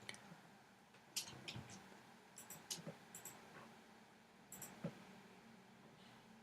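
Faint computer mouse clicks, scattered irregularly and some in quick pairs, over near silence.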